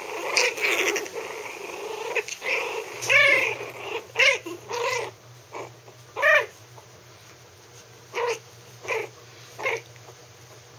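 Three-week-old Maltese puppies growling at each other in play for the first few seconds, then a series of short, high-pitched little howls that rise and fall in pitch, ending with three brief cries about a second apart.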